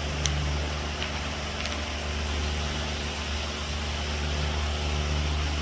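Rock saw motor running with a steady low hum while a stone is cut open, with a few faint ticks in the first couple of seconds.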